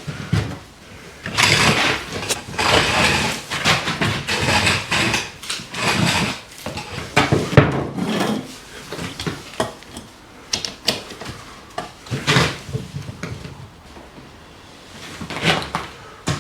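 Irregular knocks, clatters and scraping as tools and materials are handled during electrical installation work, with a few sharp clicks about ten to eleven seconds in.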